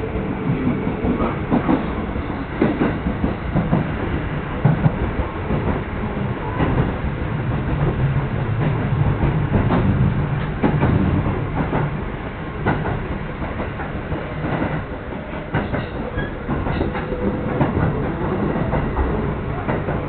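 Commuter train running along the track, heard from inside the carriage: a steady rumble of wheels on rail with irregular clicks and clacks from the rail joints.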